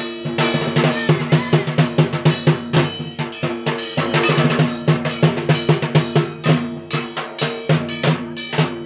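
Fast, even drumming with a ringing metallic clang over it, ritual drumming played during the boron.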